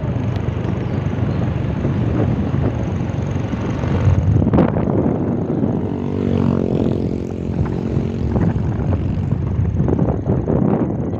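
Motorcycle running along a road, a steady engine drone with road noise. About six seconds in, a second motorcycle's engine passes close by the other way.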